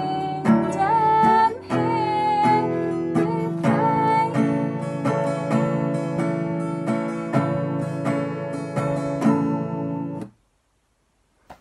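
A song with strummed acoustic guitar and a singing voice; the voice is heard in the first few seconds, and the guitar keeps on until the music ends suddenly about ten seconds in.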